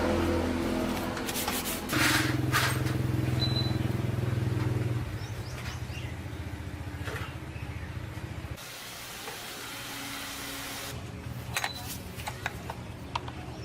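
A small engine running at a steady idle, picking up about two seconds in, easing back around five seconds, then cutting off suddenly. Scattered clicks and knocks follow.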